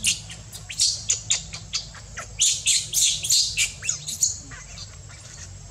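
Infant macaque crying with rapid, high-pitched squeaks in two bouts. The second bout, starting about two and a half seconds in, is longer, and the calls fade out after about four seconds.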